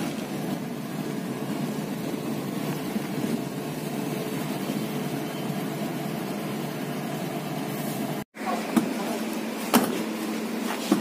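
Steady running noise of a car, even and unchanging. It cuts off abruptly about eight seconds in, and a few sharp clicks follow about a second apart.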